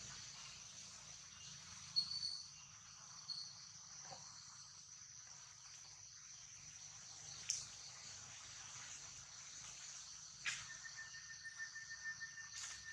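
Steady high-pitched insect chorus. A few sharp clicks are heard through it, and a second thin steady tone joins about two-thirds of the way in.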